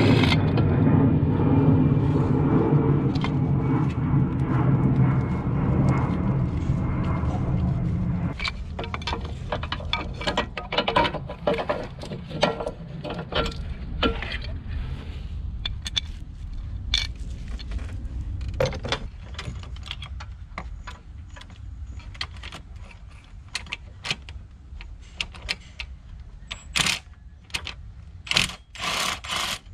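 Irregular clicks and knocks of plastic and metal parts being handled in an engine bay as the diesel fuel filter unit is unclipped and lifted off its bracket. For the first eight or so seconds a steady low rumble runs underneath, then cuts off suddenly.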